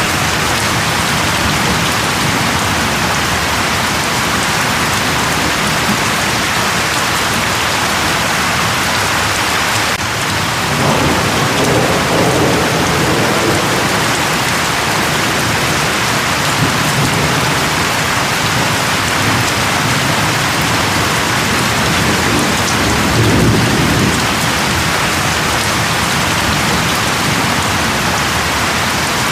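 Steady heavy rain falling, with low thunder rumbles swelling up a few times.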